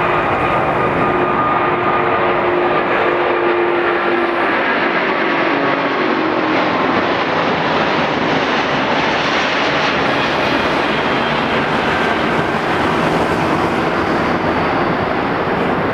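Airbus A380-800's four jet engines at takeoff power: a loud, steady jet noise with a few tones in it that slowly fall in pitch as the airliner passes.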